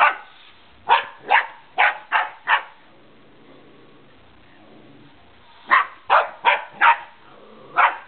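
Puppy barking at a remote control car in quick runs of sharp barks about half a second apart, with a pause of about three seconds in the middle.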